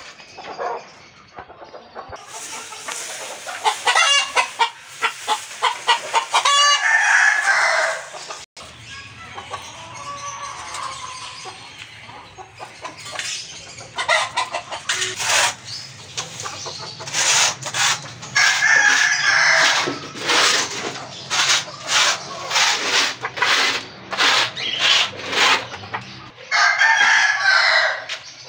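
A small flock of desi (native backyard) chickens clucking, with a rooster crowing several times. A low steady hum sits beneath from about a third of the way in.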